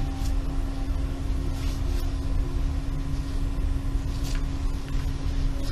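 Steady low rumbling noise with a constant hum running through it and a few faint hissing swishes.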